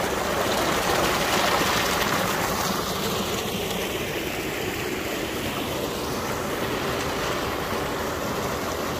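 Water gushing from an irrigation tubewell's outlet pipe into a concrete tank and channel: a steady rushing.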